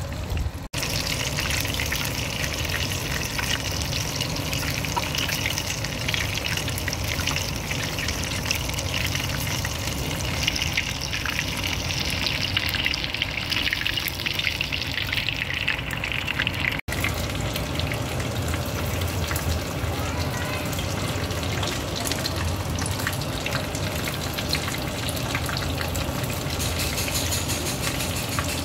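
Breaded chicken lollipops deep-frying in hot oil in a stainless steel saucepan: a steady bubbling sizzle, cutting out for an instant twice.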